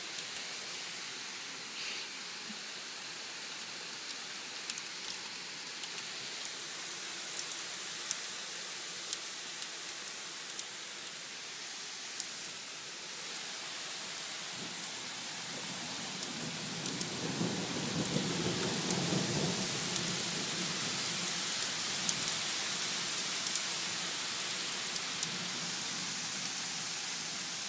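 Hail and heavy rain falling through an open window: a steady hiss of rain with scattered sharp clicks of hailstones striking the sill and glass. A low rumble swells about halfway through and fades again.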